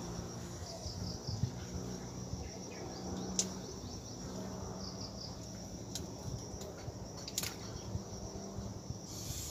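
Insects buzzing in a steady high-pitched drone, with a few sharp clicks scattered through.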